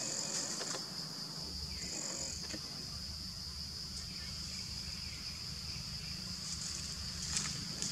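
Steady, high-pitched drone of insects in the surrounding vegetation, with a few faint clicks and rustles.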